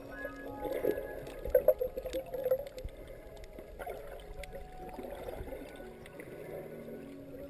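Water gurgling and sloshing in irregular bursts, loudest from about one and a half to two and a half seconds in, over faint soft background music.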